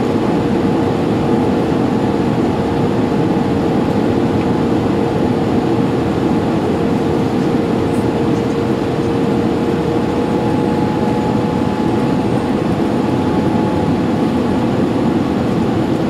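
Cabin noise of a Boeing 787-8 airliner descending on approach: the steady roar of airflow and jet engines heard from a window seat over the wing, with a steady hum through it and a second, higher hum joining about ten seconds in.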